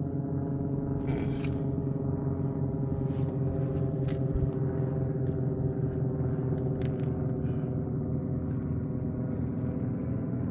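A boat motor running steadily at low speed, a continuous low hum, with a few light clicks from handling gear.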